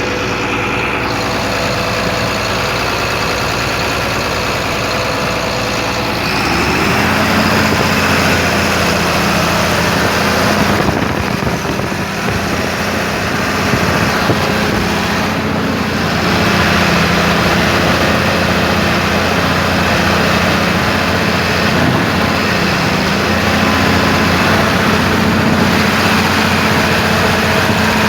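Engine running with a knock, the fault the engine is labelled with. About six seconds in it speeds up and gets a little louder, then runs steadily.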